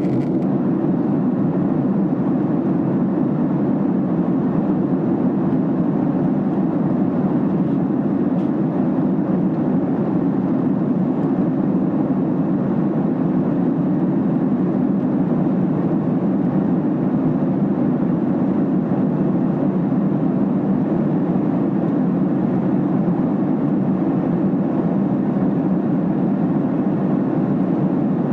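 Steady in-flight cabin drone of a Boeing 767 airliner, its engines and the rushing airflow heard inside the passenger cabin as an even low roar that does not change.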